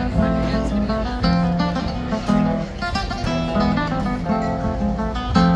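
Music led by an acoustic guitar, picked and strummed, at a steady loudness.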